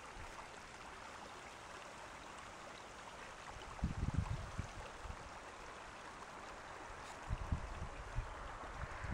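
Steady trickle of water flowing at a beaver dam, with low rumbling gusts of wind on the microphone about four seconds in and again near the end.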